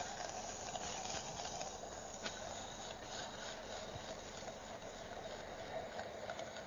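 Quiet, steady kitchen background noise with a few faint clicks and taps.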